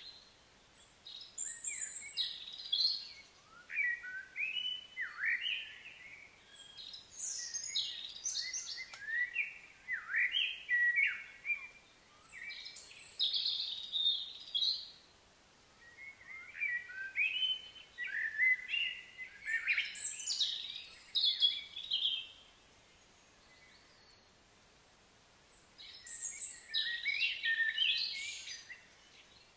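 Songbird singing in bouts of quick, varied chirping and warbling phrases, with short pauses between bouts.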